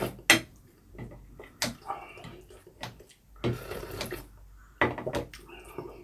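Eating sounds: beef rib soup broth slurped straight from a ceramic bowl, with several sharp clicks of kitchen scissors and utensils against the bowls.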